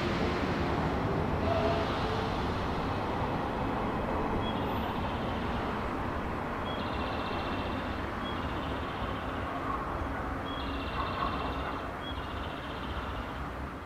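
Railway station platform ambience: a steady low rumble of electric trains, a JR 115 series pulling out and a JR 213 series standing at the platform. From about a third of the way in, short high beeps recur every few seconds.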